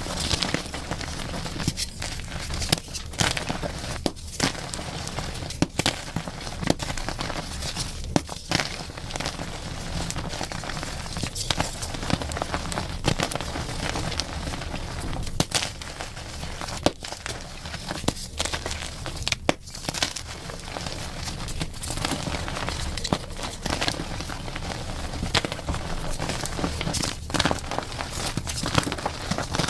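Chalk being crushed and crumbled: a continuous dry crunching and crackling, dotted with many sharp snaps.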